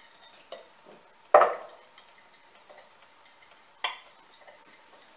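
A spoon stirring an oil-and-spice marinade in a glass bowl, with light taps against the glass and two sharp clinks, about a second and a half in and again near four seconds, the first with a brief ring.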